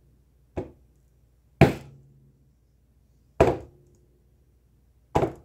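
A hammer striking wet acrylic paint on a painting panel: four separate dull knocks, spaced unevenly a second or two apart, the first the faintest.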